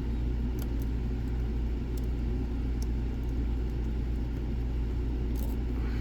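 A steady low rumble with a few faint, sharp clicks of a lock pick working the pins of a DOM IX Saturn lock, scattered singly across the stretch.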